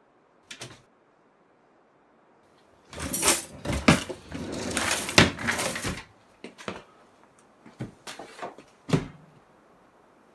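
Rummaging through a cupboard: things knocking and bags rustling, busy and loud for about three seconds, then a few scattered knocks and a final thump.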